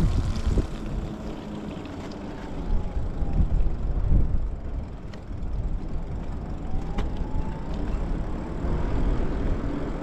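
Lyric Graffiti electric bike riding on wet pavement: a steady low rumble of wind on the microphone and tyre noise. A faint motor whine falls about a second in and rises again near the end.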